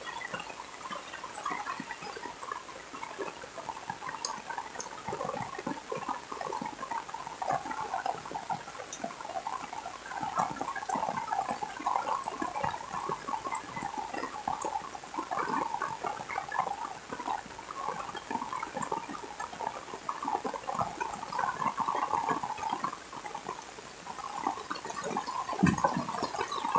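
Rain falling steadily, a dense patter of drops with a dull knock near the end.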